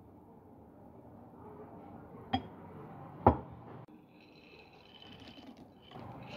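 Peanuts knocking and rattling against a glass bottle as it is handled and tipped. There are two sharp knocks about a second apart, then a faint clinking rattle with a light glassy ring.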